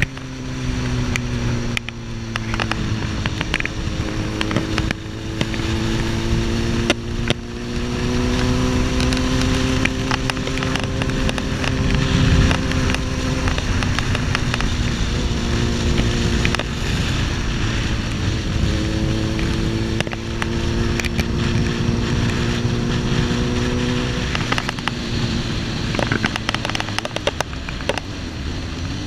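Suzuki GSX-R1000's inline-four engine running at cruising revs, its note rising slowly, dipping about halfway through, then climbing again before easing off near the end, under heavy wind buffeting on the rider's camera microphone.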